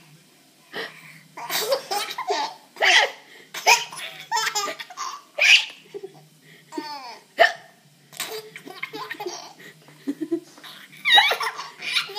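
A child giggling in repeated short bursts, broken by hiccups.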